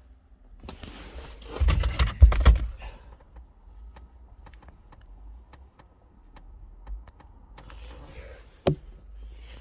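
Hands working at a steering column and ignition lock, making scattered clicks and rattles of metal and plastic parts. A burst of rattling and knocking comes about two seconds in, and a single sharp click near the end.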